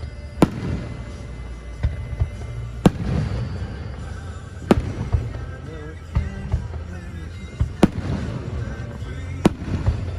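Fireworks shells bursting, about five sharp loud bangs spaced roughly two seconds apart, with smaller pops between them. Music plays underneath.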